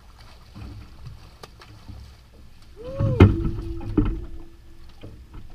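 Water splashing and heavy knocks against the boat as a landing net is swept through the water to land a hooked catfish, loudest about three seconds in.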